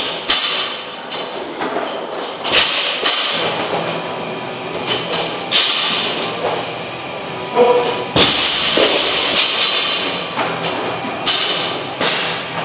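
Workout equipment thudding and clanking: barbells with bumper plates and medicine balls landing on the gym floor at irregular intervals, about one to two seconds apart, over background music.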